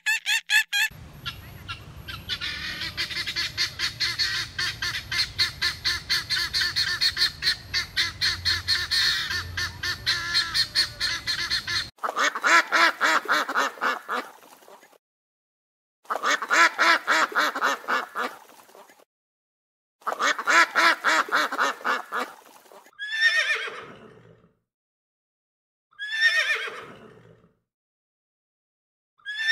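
A run of animal calls: rapid, high chattering calls over a low steady hum for about the first eleven seconds, then ducks quacking in three runs of about three seconds each, then a horse whinnying twice, each call falling in pitch, with a third whinny starting at the very end.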